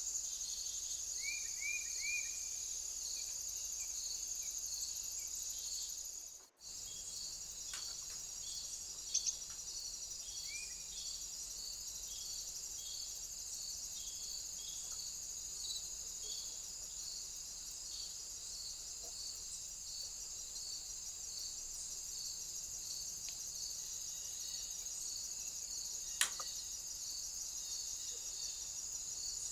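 Steady chorus of insects, most likely crickets, with a high continuous trill and a regular chirp repeating a bit more than once a second. A few short, rising bird chirps come in during the first seconds. The sound drops out for a moment about six seconds in.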